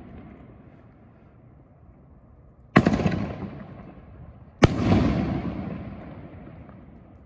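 Two 4-inch aerial canister shells bursting about two seconds apart, each a sharp bang followed by a long rolling rumble that dies away over a couple of seconds. The fading rumble of an earlier break is heard at the start.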